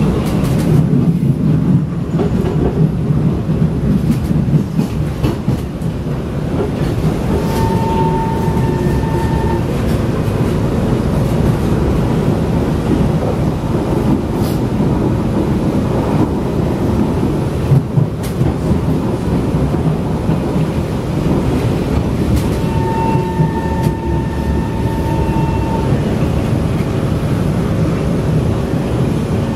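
Interior running noise of a Kawasaki/Kinki Sharyo C151 metro train: a steady rumble of wheels on rails. Twice a steady high tone sounds over it, once for about two seconds and once for about three.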